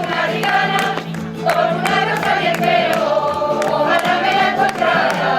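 A coro rociero, a choir of Andalusian voices, singing sevillanas together, with sharp regular beats keeping time under the singing.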